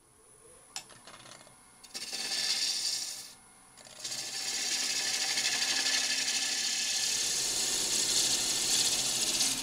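Half-inch spindle gouge cutting dry wood on a spinning lathe: a scraping shave in two passes, a short one about two seconds in and a longer steady one from about four seconds in. A faint steady high whine sits underneath.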